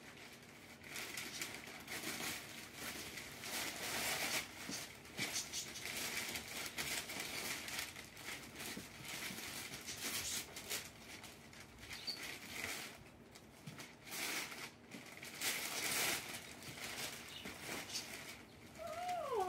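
Wrapping paper being torn open and crumpled by hand: irregular ripping and rustling strokes that come and go throughout.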